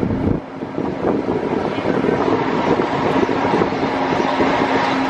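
Disneyland monorail running, a steady hum over loud, even vehicle and wind noise.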